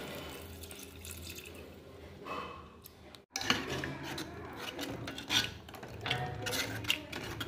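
Milk pouring in a steady stream into a steel pot of soaked sago. After a cut about three seconds in, a steel spoon stirs the mixture, clinking and scraping against the pot.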